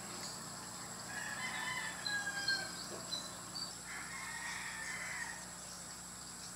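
Rooster crowing, fairly faint, with a second crow about four seconds in, over a steady high drone of insects.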